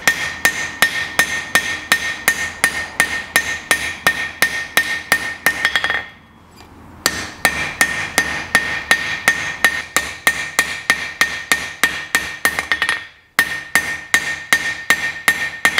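Hand hammer striking a glowing-hot 4140 steel bar on an anvil in a steady rhythm of about three to four blows a second, each blow ringing, while the chisel's taper is blended into its square struck end. The hammering comes in three runs, quickening at the end of each, with short pauses about six seconds in and about thirteen seconds in.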